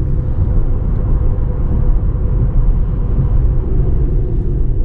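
Steady road and engine rumble heard inside a moving car's cabin, with a faint steady hum over it.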